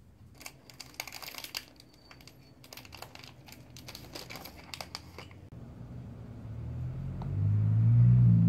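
Plastic snack packets crinkling and rustling as a hand rummages through them on a wire rack, in quick irregular crackles for about five seconds. Near the end a low humming rumble swells up and becomes the loudest sound.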